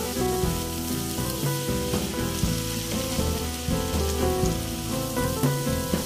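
Bean sprouts and corn sizzling in a hot nonstick wok as a wooden spatula stir-fries them, with background music playing over it.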